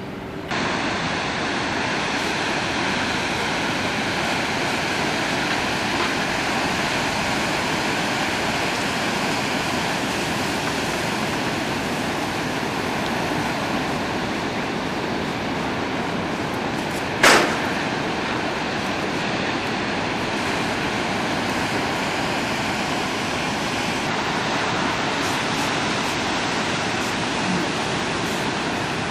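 Heavy surf breaking on the shore: a steady, even rush of waves. About seventeen seconds in there is a single sharp click.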